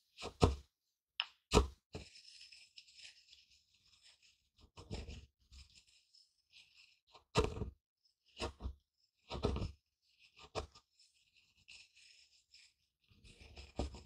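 Pestle grinding and knocking dry granular grains in a mortar. There are about eight uneven crunching knocks, the loudest one and a half and seven and a half seconds in, with a gritty scraping between them.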